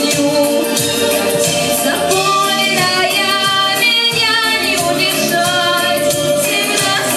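A song with a singing voice over an instrumental backing track with a steady percussion beat.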